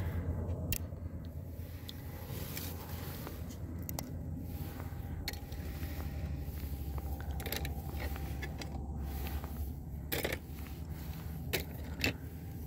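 Small sharp clicks and scrapes as hot-glued model figures and their glue blobs are picked off a platform board by hand, scattered irregularly over a steady low rumble.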